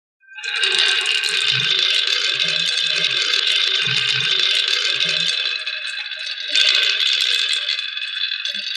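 Many marbles rolling and clattering down a plastic marble-run track: a continuous dense rattle that starts suddenly, with occasional low knocks.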